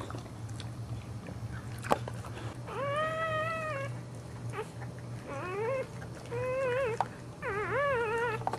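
Newborn boxer puppy crying: four high squeals, the first long and steady, the later three shorter and wavering in pitch. A single sharp tap comes about two seconds in.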